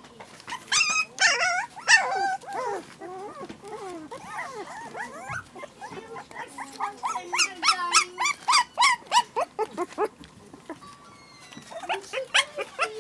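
Young puppies yipping and whining while they play, in many short high-pitched calls: a cluster in the first two seconds and a quick run of yips from about seven to ten seconds in.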